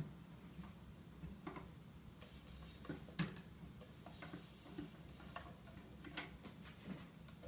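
Irregular light clicks and taps of string and a starting clamp being handled while stringing a tennis racket, with a faint rustle now and then.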